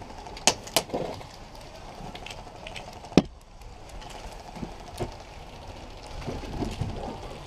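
A few sharp, irregular single cracks from airsoft play, the loudest about three seconds in, with lighter clicks around them.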